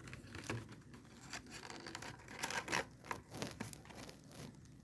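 Handling noise: scattered clicks, scrapes and rustles, loudest in a cluster about two and a half seconds in.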